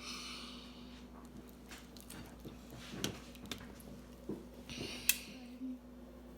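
Raw seasoned steak being smashed by hand to tenderize it: scattered soft, squishy knocks and rustles, with a sharper tap about five seconds in, over a steady low hum.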